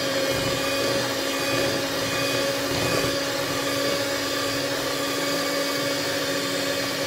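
A motor-driven machine running steadily: a constant hum over an even whir, starting abruptly.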